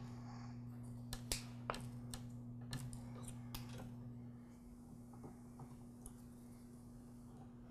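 Crimping pliers and insulated spade connectors handled and squeezed onto switch wires: a few sharp, light clicks in the first four seconds, faint, over a steady low hum.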